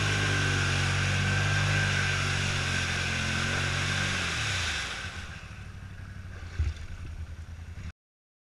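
ATV engine running steadily as the quad churns through muddy water, then its revs drop away about four seconds in as the front noses down into a deep mud hole. A low, uneven chugging follows, with one thump, before the sound cuts off abruptly near the end.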